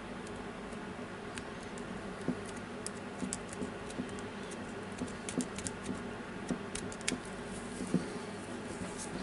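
Irregular small clicks and scratches of a thin screwdriver tip picking silicone coating off a drill's controller circuit board.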